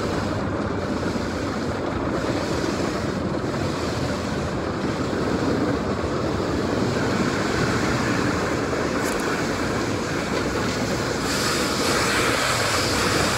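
Heavy water pouring and streaming over a car's windows, heard from inside the cabin as a steady rushing noise that turns a little brighter near the end.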